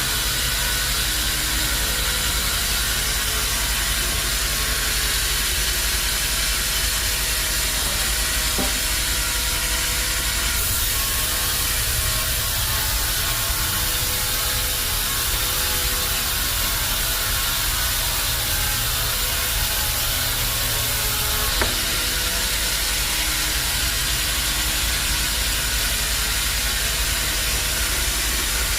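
Band sawmill machinery running steadily, with a low rumble and a hiss. The sound changes about a third of the way in and changes back about two-thirds in, with a small click at the second change.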